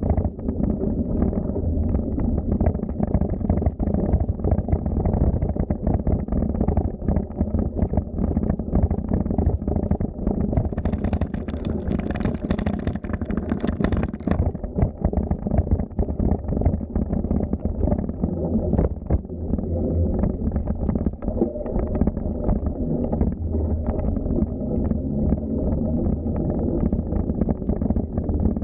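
Wind buffeting the microphone and a bicycle rolling along a path: a steady low rumble crowded with small knocks and rattles, with a brief hiss about eleven seconds in that lasts a few seconds.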